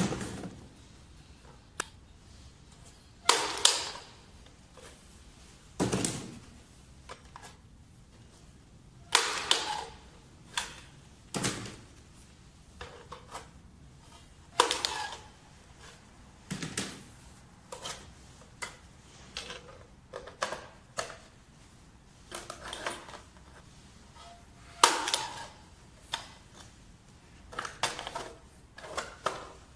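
Mantistol LVP-230 9-inch vinyl flooring cutter being worked on vinyl planks: about a dozen separate sharp clacks and cuts, a couple of seconds apart, each dying away quickly, from the lever blade shearing through the planks and the planks and metal fence being knocked into place on the cutter's bed.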